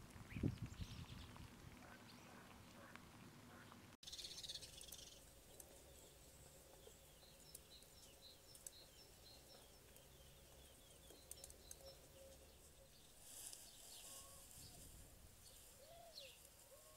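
Faint outdoor ambience with small birds chirping repeatedly in the distance. A brief low thump comes just after the start.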